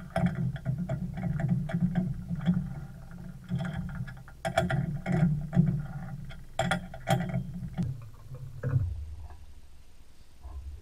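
Metal clicks and clinks of a chuck key turning the jaw screws of a four-jaw lathe chuck as the ER32 collet adapter is clamped in, over a steady low hum. The clinks stop about nine seconds in, and the hum drops lower.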